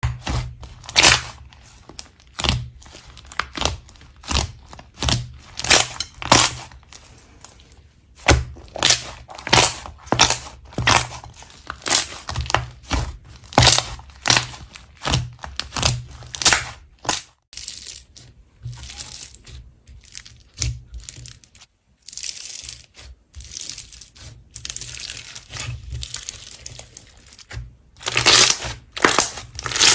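Slime being squeezed and pressed by hand: a run of short, sharp squishes and pops, one or two a second, thinning out for a few seconds past the middle.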